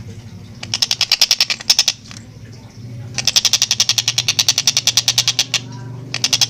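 Tengkek buto, a kingfisher, giving its rapid rattling chatter: runs of sharp, high notes at about ten a second. There are three runs: about a second long near the start, a longer one from about three seconds in, and another starting just before the end, over a low steady hum.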